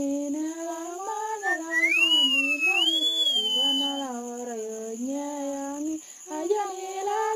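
A woman singing a song in the Otuho (Lotuko) language. From about two seconds in, a high whistle-like line glides up and down over the voice for about two seconds.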